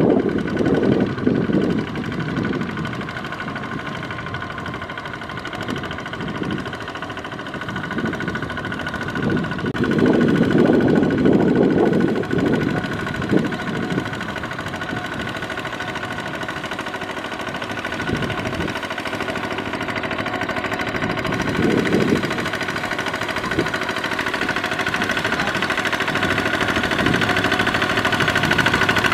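Single-cylinder diesel engine of a two-wheel walking tractor running steadily under load with a knocking clatter as it drags steel cage wheels through a flooded rice paddy. Louder low rumbling comes at the start and again about ten seconds in, and the engine grows louder near the end.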